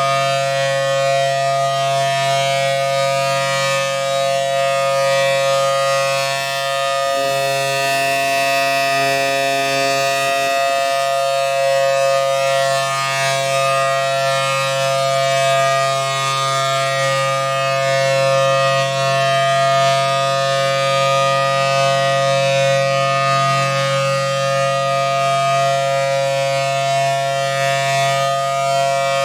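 Federal Signal Thunderbolt 1000T outdoor warning siren with a 4/5-port chopper, sounding a loud, steady full-alert tone: two close notes together at constant pitch.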